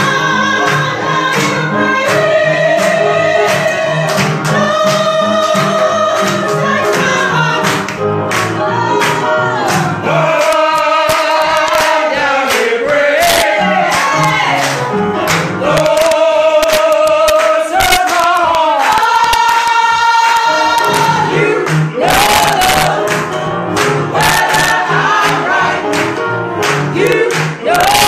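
A small choir of men and women singing a slow gospel song in long held notes, accompanied by a grand piano with a pulsing bass, while people clap along, the clapping growing busier near the end.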